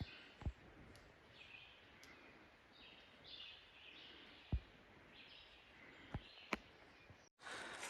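Faint songbirds singing in short repeated phrases, with a few soft low thumps scattered through. Near the end a louder, even hiss of background noise comes in.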